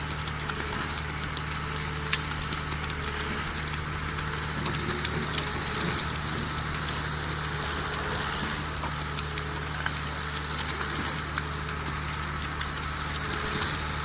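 Diesel concrete mixer pump running steadily: a constant low engine hum under a crackling hiss, with a couple of sharp clicks.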